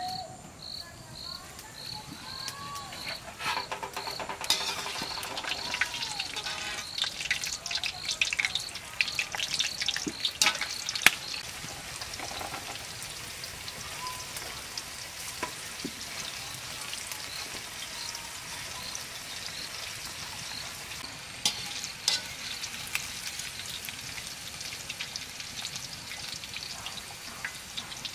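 Chicken popcorn pieces deep-frying in hot oil: a sizzle full of crackles and pops, busiest in the first half and settling into a steadier hiss later. An insect chirps about twice a second during the first few seconds.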